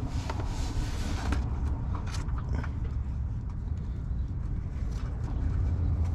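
Small clicks, scrapes and rustling of hands working a plastic drain hose onto an EZ Drain oil drain valve under a pickup, over a steady low rumble.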